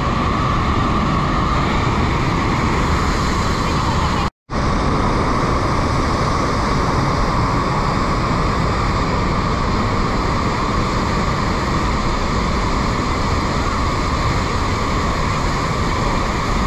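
Steady rushing of Bridal Veil Falls at Niagara, heavy falling water close by. The sound drops out completely for an instant about four seconds in.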